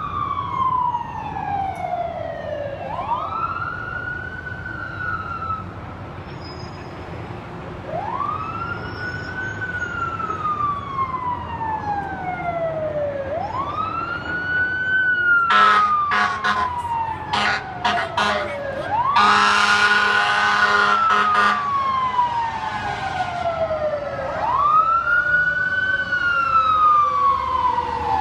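Emergency vehicle's wail siren, its pitch sweeping quickly up and then sliding slowly down, over and over about every five seconds. Around the middle come a few seconds of loud, low horn blasts, and near the end a second siren's wail overlaps the first.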